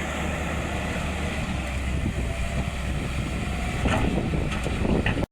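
Sany SY210 excavator's diesel engine running with a steady low drone. A few sharp knocks come near the end, and the sound cuts off suddenly.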